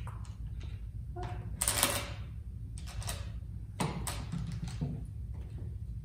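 Latch hardware on a wooden toddler latch board worked by hand: a slide latch scraped across, with small clicks and knocks as the little hinged door is unlatched and opened.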